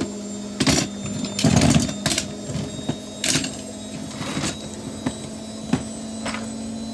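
Tools and metal parts clattering and clinking as someone rummages through a toolbox, in irregular knocks and rattles, over a steady low hum.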